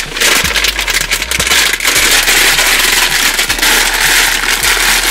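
Packet of dry Korean instant noodles being crushed by hand in its plastic bag: a loud, continuous crinkling of the wrapper and crackling of the dry noodle pieces.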